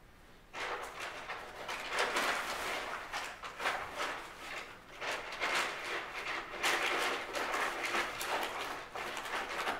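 Brown paper evidence bag rustling and crinkling as it is handled, starting about half a second in with many quick crackles.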